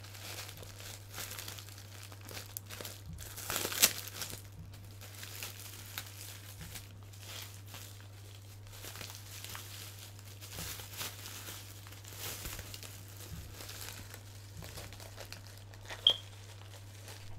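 Clear plastic packaging crinkling and rustling as it is unwrapped by hand, with a louder crackle about four seconds in and a short sharp click near the end. A steady low electrical hum runs underneath.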